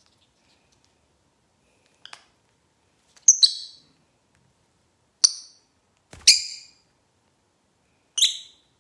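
Lovebirds, a rosy-faced and a Fischer's lovebird, giving short shrill chirps, about six single calls spaced a second or two apart.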